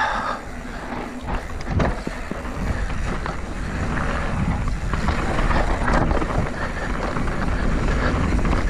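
Downhill mountain bike ridden fast on a dirt trail: wind buffeting the microphone and tyres rolling over rough ground, with a few sharp knocks over bumps.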